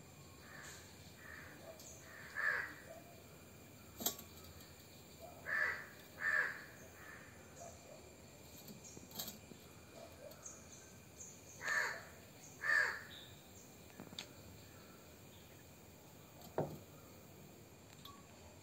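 A crow cawing repeatedly, with short harsh calls that mostly come in pairs about a second apart and fainter calls between them. Two sharp clicks are also heard, one about four seconds in and one near the end.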